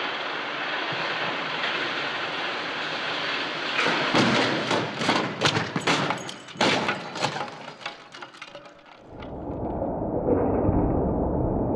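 Volvo XC90 roll-over crash test: a steady rushing noise as the SUV comes up to speed. About four seconds in comes a rapid string of heavy bangs and crunches, with glass and debris, as the body slams into the ground and tumbles over. Near the end the sound gives way to a low steady rumble.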